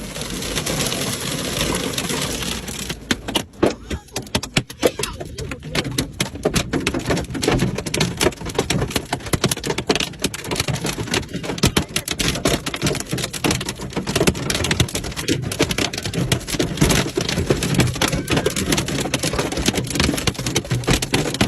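Hailstones pelting down: a dense, irregular clatter of impacts on hard surfaces over a steady hiss, the individual strikes standing out more from about three seconds in.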